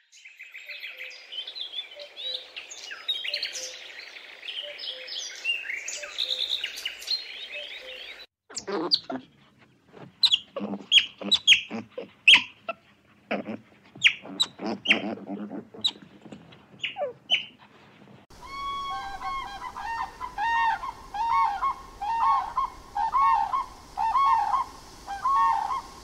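Helmeted guineafowl calling in a dense, high chatter, then, after about eight seconds, otters giving sharp, separate chirps and squeaks. From about eighteen seconds in, grey crowned cranes give a repeated series of pitched honks.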